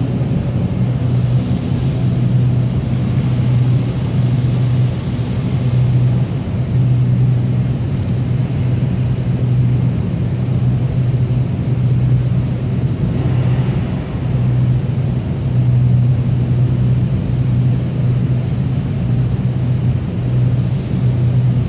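Steady low hum over a rushing noise from the machinery of an Amazon robotic warehouse, where drive robots carry yellow shelving pods across the floor.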